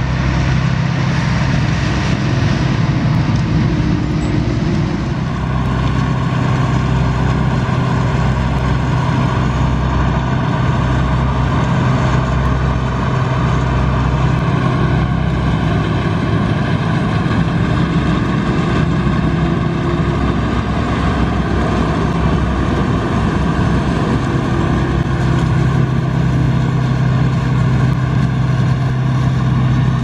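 Claas Dominator 208 combine harvester's diesel engine running steadily at working revs while it harvests sunflowers, a constant loud drone with a low hum.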